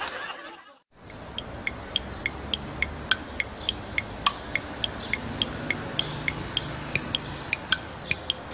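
Laughter and music fading out, then after a short gap a light background music cue with a steady ticking beat, about three to four ticks a second.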